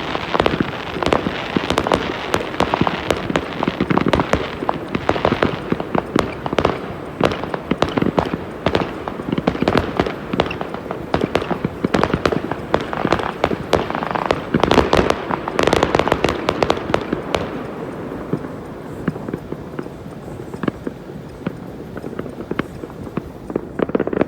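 Many firecrackers and fireworks going off at once: a dense, continuous crackle of bangs and pops that thins out over the last few seconds.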